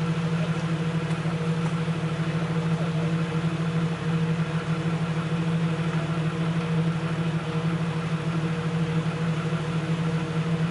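Off-road 4WD vehicle's engine running steadily at low revs, an even hum that holds without revving up or down.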